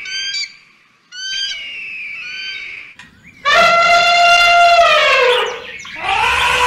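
High, thin calls of a bald eagle, twice, followed from about three and a half seconds in by a loud African elephant trumpet that drops in pitch as it ends. A second trumpet begins near the end.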